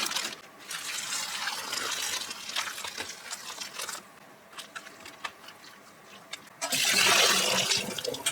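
Water running in two spells: a longer one at the start and a louder, shorter one near the end, with a few light clicks between.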